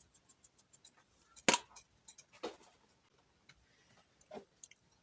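Kitchen handling of spice containers: faint quick clicks, then three light knocks, the loudest about one and a half seconds in.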